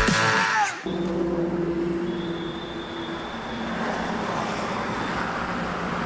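Rock music that drops in pitch and cuts off within the first second, then steady traffic noise from vehicles passing on a highway, with an engine hum underneath.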